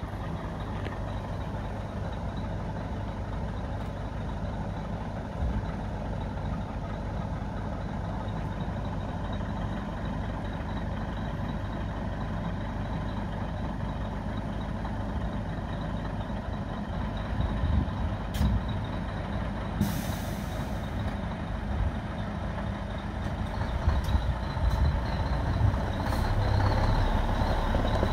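Scania P380 tipper truck's diesel engine idling steadily while the tipper body is lowered. A short hiss of air comes about two-thirds of the way through, and the engine sound grows louder near the end.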